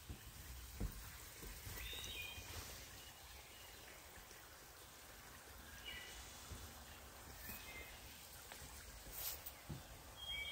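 Faint woodland birdsong: a bird sings a short phrase of high chirps every four seconds or so. A couple of dull footsteps sound on a wooden boardwalk.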